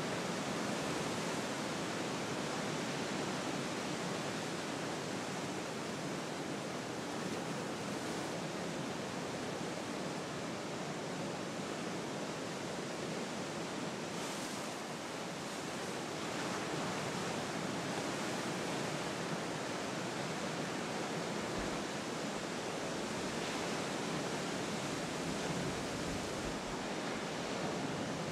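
Steady, even rush of ocean surf and wind.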